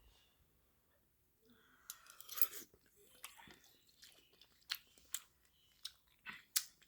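Close-up mouth sounds of a person eating noodle soup: wet chewing with short lip smacks. The first couple of seconds are almost silent, then a louder bite-and-chew about two seconds in, followed by scattered smacks.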